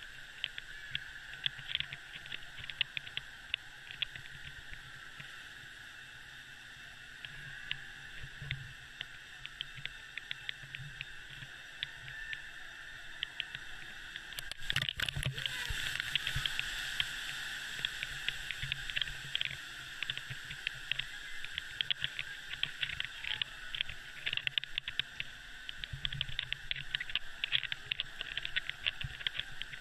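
Indoor water park ambience: water spraying and splashing around a play structure, with many small irregular ticks, a little louder from about halfway through.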